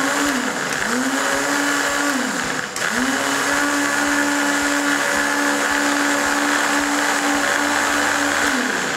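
Countertop blender puréeing a thick mung bean and vegetable soup. The motor speeds up and drops back twice in the first three seconds, then runs steadily and winds down near the end as it is switched off.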